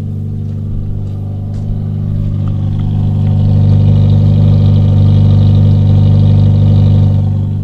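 1991 Ford Escort GT's 1.8-litre DOHC four-cylinder running with a loud exhaust drone heard inside the cabin, swelling louder about two seconds in, holding steady, then easing off near the end. The drone is from an exhaust the owner plans to have welded to stop it droning and rattling.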